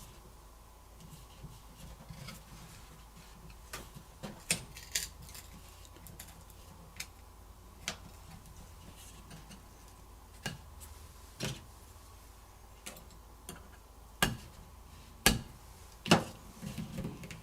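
Irregular sharp clicks and taps of a plastic pry tool working against a Samsung Galaxy Z Flip's glued back plates, over a faint steady hum. The loudest snaps come near the end.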